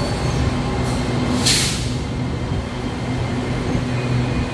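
SRT Red Line electric commuter train pulling out of the station past the platform, its motors humming steadily over the rolling of the wheels, with a short hiss about a second and a half in.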